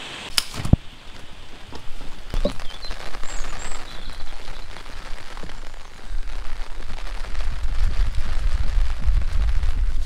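Steady rain pattering, with two sharp knocks just after the start and a low rumble building through the second half.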